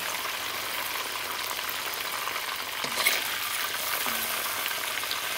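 Chicken breast pieces sizzling steadily as they shallow-fry in hot oil in a cast iron karahi, near the end of frying. A metal spoon turning and lifting the pieces knocks lightly against the pan about three seconds in.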